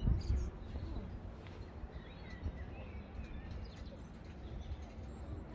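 Wind buffeting the microphone in a low rumble, strongest just at the start, with a few short bird chirps over it.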